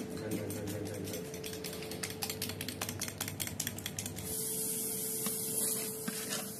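Egg and Parmesan mixture being beaten by hand in a ceramic bowl, the utensil clicking rapidly against the bowl for about four seconds. Then pork sizzles in a pan, a steady high hiss, over a faint steady hum.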